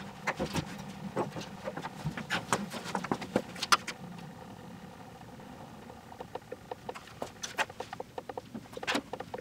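Engine oil dripping and trickling from a lawn mower's open drain hole into a drain pan: irregular small drips and patters, sparser for a couple of seconds in the middle.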